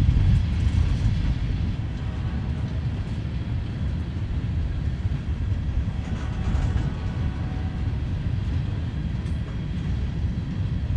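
CSX freight train's gondola cars rolling past at steady speed: a continuous low rumble of steel wheels on rail, with faint ringing tones from the wheels about two seconds in and again around six seconds in.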